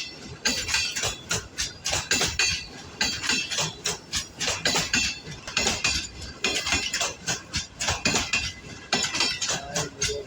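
Passing passenger train's wheels clattering over the rail joints in a fast, continuous run of sharp metallic clanks as the coaches go by.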